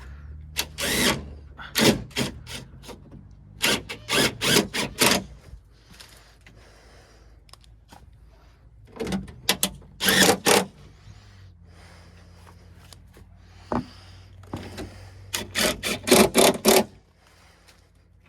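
Ratchet wrench with a 7mm socket clicking in four bursts of rapid clicks, driving screws back into a car door panel, over a low steady hum.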